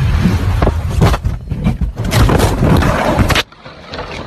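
Car crash: a loud rush of noise broken by several heavy knocks and crunches as the vehicle is thrown about, cutting off abruptly about three and a half seconds in.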